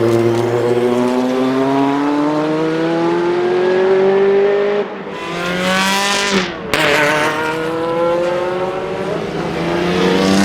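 Historic race car engines at full throttle, climbing steadily in pitch as they accelerate. The note breaks off about halfway through, then climbs again.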